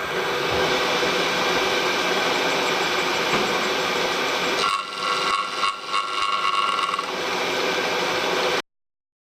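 A machine-shop power tool running steadily. About five seconds in its tone changes for a couple of seconds, with a higher ringing note, as if the cut or load changes, and near the end the sound stops abruptly.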